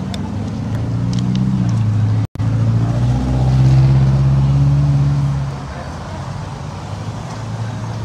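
Road traffic passing on a busy street: a vehicle engine's low hum grows loudest between about three and five seconds in, then eases off. The sound cuts out completely for an instant about two seconds in.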